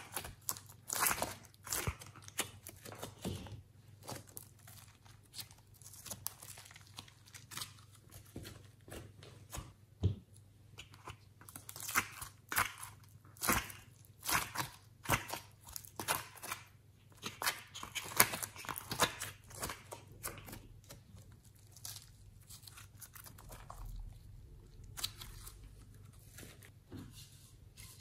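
Glossy slime being pressed and peeled out of a plastic compartment box by fingers, giving irregular sticky crackles, pops and tearing sounds.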